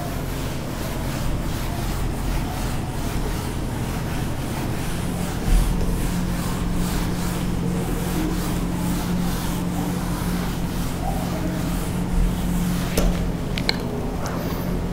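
Whiteboard duster wiping marker off a whiteboard in quick repeated back-and-forth strokes, over a steady low hum. A few small clicks come near the end.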